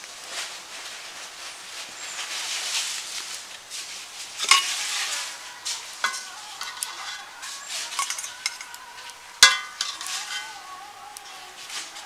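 Bitter gourd and egg fry sizzling in a metal pan while it is stirred and scraped, with sharp ringing clinks of the utensil against the pan, the loudest about nine and a half seconds in.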